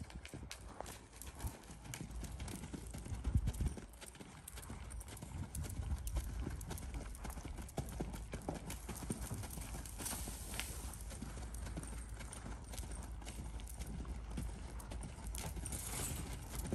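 A ridden horse's hoofbeats on the sand footing of an arena: a continuous run of soft thuds as it moves around the ring, with one louder knock about three seconds in.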